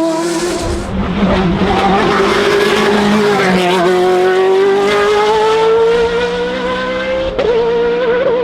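Hill-climb race car engine at high revs, its pitch climbing steadily under acceleration through a long gear. Near the end there is a sharp crack and the revs waver up and down.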